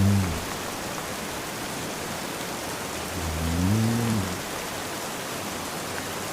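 Steady rain hiss with a man snoring slowly: a low snore that rises and falls in pitch about three seconds in, and the tail of another at the very start.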